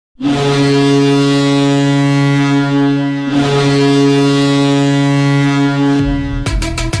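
Ice hockey goal horn of HC 05 Banská Bystrica sounding two long, loud blasts, the second following straight on from the first. Near the end the goal song cuts in with a heavy bass and drum beat.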